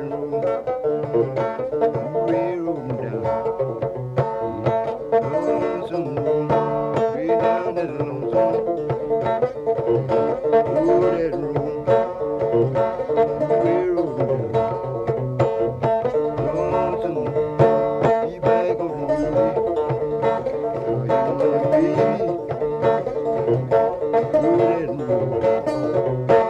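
Instrumental background music led by fast, evenly picked plucked strings in a country or bluegrass style.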